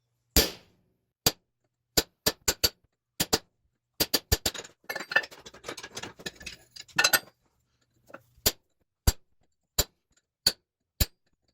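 Hammer blows on a newly made 5160 coil-spring steel chisel as it cuts a line in steel: sharp metallic strikes, about twenty in all, irregularly spaced, with a scratchy rustle about five to seven seconds in.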